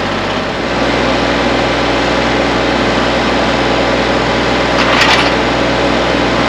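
Tractor engine running steadily, growing louder with a deeper note about half a second in as the lowered post-hole auger bites into the ground, with a brief scraping crackle of the auger cutting through soil about five seconds in.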